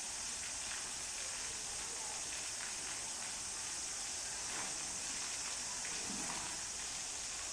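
Young African elephant tugging a rubber tyre hung on a concrete wall, giving a few faint knocks over a steady high hiss.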